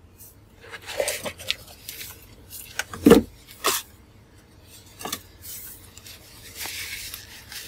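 Watch box and its packaging being opened and handled by hand: scattered small clicks and rubbing, with one louder knock about three seconds in and a longer stretch of rubbing near the end.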